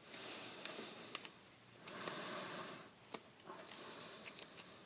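Pliers scraping and picking at a plastic electrical connector to dig out a metal contact, with a few sharp clicks among soft rasping strokes.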